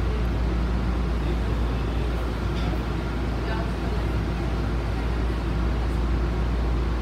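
MBTA Blue Line 700-series subway car standing at an underground platform with its doors open, its onboard equipment giving a steady low hum and rumble.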